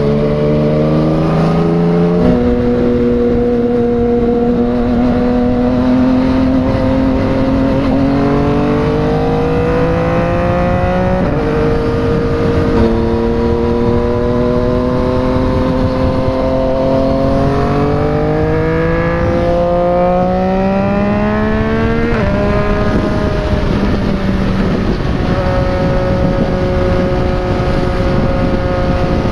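Yamaha MT-09's three-cylinder engine through a replica Akrapovic exhaust, pulling under way. The pitch climbs slowly and drops suddenly at each gear change, about 11 and 22 seconds in, then holds steady at cruising speed near the end.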